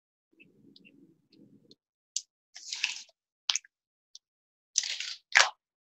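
A few short scratches and taps of a paint marker on card as dashes of a border are drawn, with small handling clicks in between.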